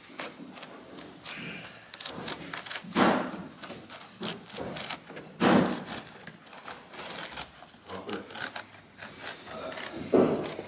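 Carpet being worked and tucked by hand against the base of a pillar with a hand tool: scraping and rubbing of carpet with scattered small clicks and knocks, and louder scrapes about three and five and a half seconds in.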